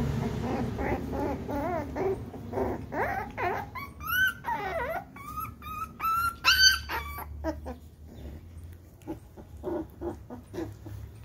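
Two puppies play-fighting, whining and yelping in a quick string of short, high-pitched calls. The loudest yelps come about midway, then softer short yaps follow.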